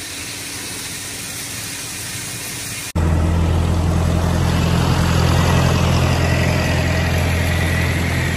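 Feed mixer unloading ground corn down its chute: a steady machine hum with the hiss of pouring grain. About three seconds in it cuts abruptly to a John Deere tractor engine running close by, much louder, with a steady low throb.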